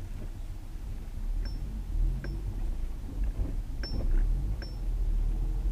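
Inside the cabin of a Honda S2000 (AP2) with its 2.2-litre four-cylinder engine, driving slowly: steady low engine and road rumble. About four light clicks come through the middle.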